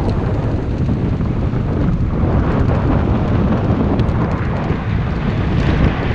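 Wind buffeting the microphone of a camera riding along on a mountain bike, a steady low rumble with a few faint ticks.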